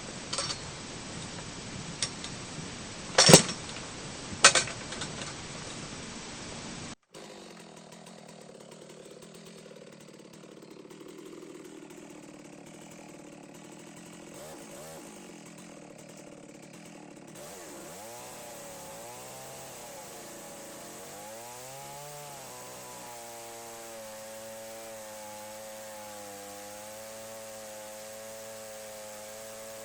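Stihl MS 660 chainsaw on an Alaskan-style chainsaw mill ripping through a maple log, its engine pitch rising and falling before it settles to a steady note under load. A few sharp knocks come in the first seconds, the loudest about three seconds in.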